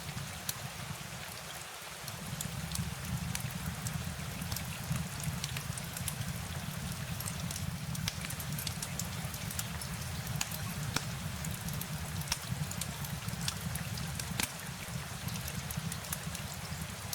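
Steady rain, with many single drops ticking sharply over an even hiss and a deep, steady rumble underneath.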